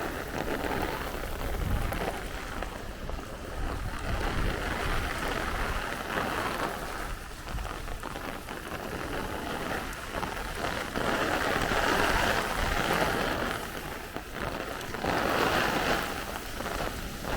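Heavy downpour hissing and splashing on pavement, with wind gusting over it and swelling louder about two-thirds of the way through and again near the end.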